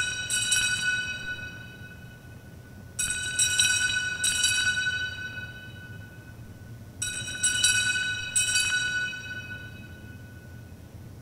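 Altar bells rung at the elevation of the consecrated host: three rounds of quick, bright ringing strokes about four seconds apart, each round fading away over about two seconds.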